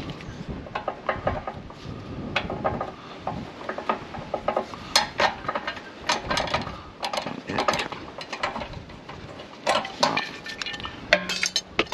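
Irregular metallic clinks and clicks of a steel spanner working the fuel-line union under a tractor's fuel tank, with low wind rumble on the microphone.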